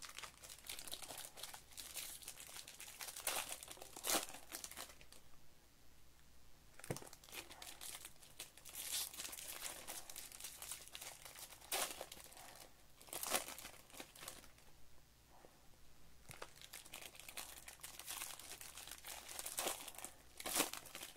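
Foil wrappers of Topps baseball card packs crinkling and tearing as they are worked open by hand, in irregular bursts of crackling.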